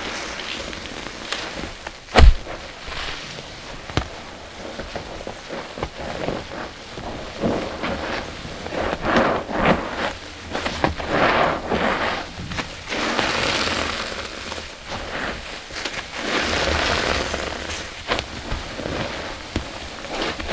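A foam sponge full of thick shampoo suds squeezed by hand again and again: wet squelches and crackling foam. A single sharp knock about two seconds in is the loudest sound.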